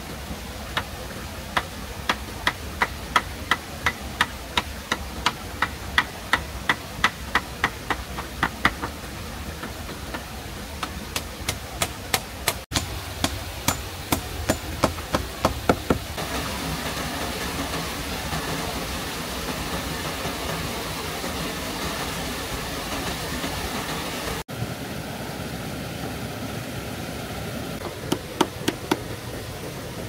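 Rapid runs of sharp strikes from a hand tool, about three a second, over a steady hiss: one long run, a second run about ten seconds in, and a short run near the end. The hiss grows louder after the second run.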